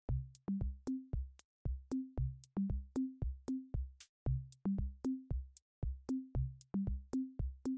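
Electronic background music: a drum-machine beat with short, punchy bass notes stepping upward in pitch in a repeating pattern.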